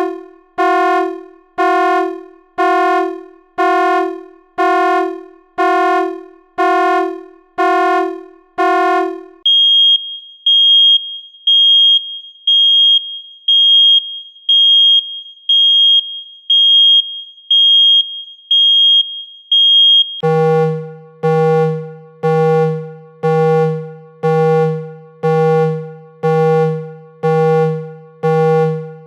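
Electronic alarm tones, each repeating at about one beep a second: a mid-pitched buzzy beep, changing about ten seconds in to a high, piercing single-tone beep, and about twenty seconds in to a low buzzy beep.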